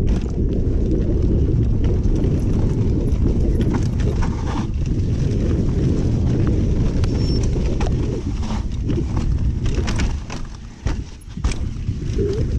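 Mountain bike descending rough singletrack: a steady rumble of wind on the microphone, with the rattle and knocks of the bike and its tyres over rocks and roots. It quietens briefly near the end, then picks up again.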